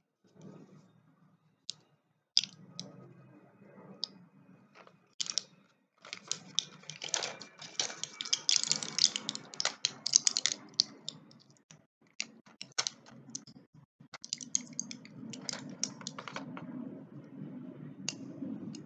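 Close-up handling of Mucinex DM medicine packaging: scattered sharp clicks and taps, with a busy stretch of crinkling and crackling from about six to eleven seconds in and a shorter one a little later.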